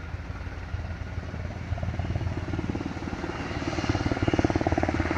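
Helicopter rotor chopping in a rapid, even beat, growing louder over the second half as it draws nearer.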